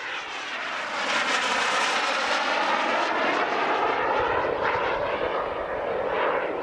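Turbine engine of a large radio-controlled model jet flying past. The rushing hiss swells about a second in and stays loud, sweeping as the model passes, then eases off near the end.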